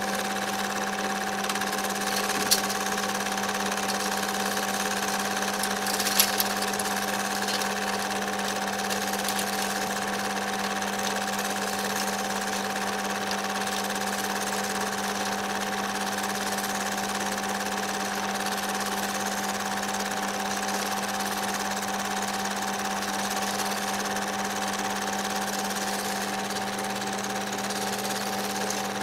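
Home-movie film projector running: a steady whirring hum with a constant pitch. A click comes about two and a half seconds in and another about six seconds in.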